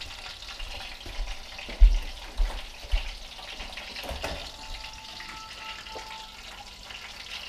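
Breaded brook trout frying in oil, a steady sizzle. A few low bumps about two to three seconds in.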